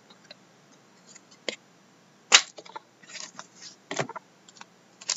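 Trading cards and card packs being handled on a desk: a few light clicks and taps, the sharpest about two seconds in, with brief soft rustling of card stock.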